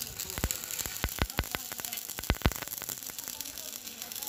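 Electric arc welding on a steel tractor plow part: a steady hiss and crackle from the arc, with several sharp pops in the first two and a half seconds.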